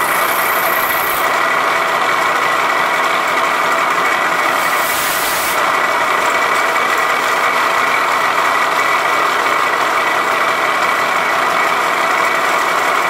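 Vertical milling machine taking a side-milling cut in metal stock with an end mill: a steady, loud cutting noise with a sustained high ringing tone. A brief hiss comes in about five seconds in.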